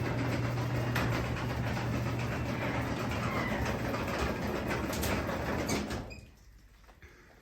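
Craftsman 3/4 hp belt-drive garage door opener running with a steady motor hum as the door travels up, cutting off about six seconds in when the door reaches the open position. Faint rain pattering is left afterwards.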